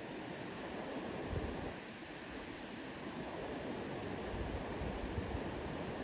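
Wind blowing through cloud-forest canopy, with irregular gusts rumbling on the microphone and a steady high-pitched hiss underneath.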